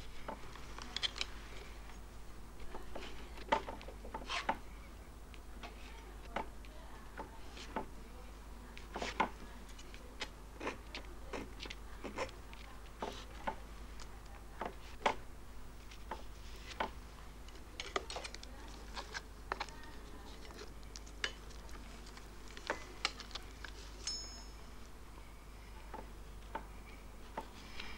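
Palette knife dabbing and scraping thick paint on a canvas: irregular light taps and clicks, with a steady low hum underneath.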